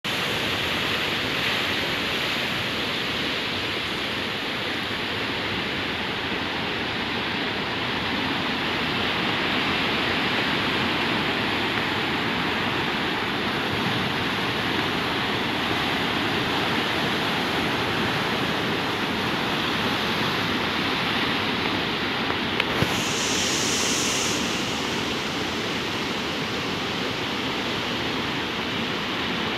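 Rough sea surf breaking and washing over dark shoreline rocks, a steady continuous rush of waves.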